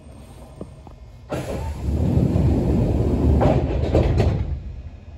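Yoro Railway 600-series train heard from on board: after a quiet rumble, a sudden loud rush of noise starts about a second in and lasts about three seconds. A few knocks come near its end before it fades.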